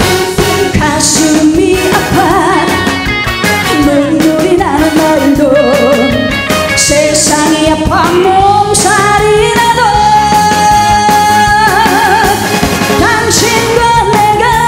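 A woman sings a Korean trot song live into a microphone over a full backing band. Her voice wavers with vibrato and holds one long note midway through.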